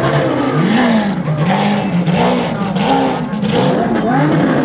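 Sports car engines revving in repeated short blips, the pitch rising and falling again and again.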